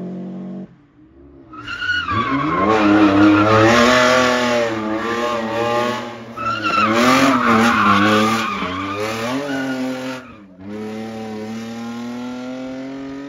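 Historic rally car's engine revving hard, its pitch rising and falling with throttle and gear changes, with tyre squeal. It builds about a second and a half in, and a steadier engine note takes over in the last few seconds.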